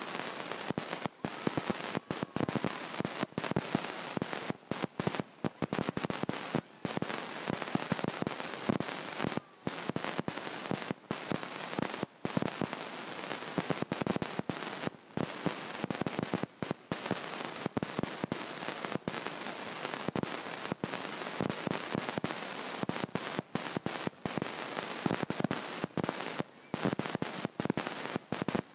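Dense crackling and popping noise throughout, broken by frequent brief dropouts, masking whatever else is there.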